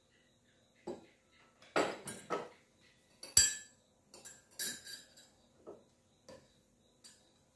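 A metal spoon stirring a glass of lemonade, clinking against the glass in a run of irregular strokes, with one louder knock about three and a half seconds in.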